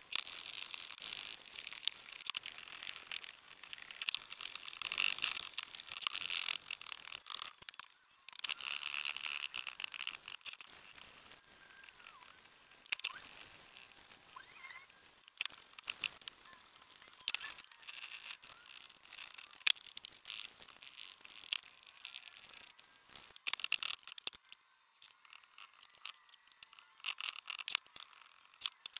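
Hand sanding hardwood with sandpaper: scratchy strokes of abrasive rubbing across the stool's top in runs of a few seconds with short pauses. A little before the end the sanding stops, leaving quieter scattered clicks and handling noises.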